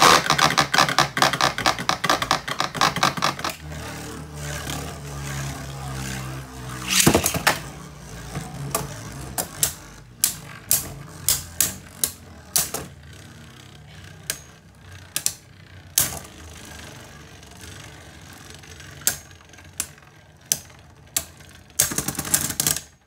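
Two Beyblade Burst spinning tops battling in a plastic BeyStadium: a fast rattle of clashes at first, then a steady whir broken by sharp clacks every second or so as they strike, with a quick flurry of hits near the end.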